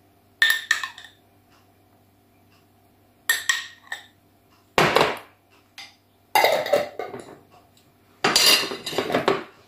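Metal spoon clinking and scraping against a glass mayonnaise jar and the salad bowl, in about five short bursts as mayonnaise is scooped out and dropped onto the salad.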